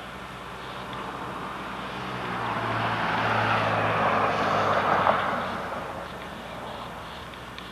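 A vehicle passing by: a rushing engine noise with a low drone that swells for a few seconds, peaks around four to five seconds in, then fades away.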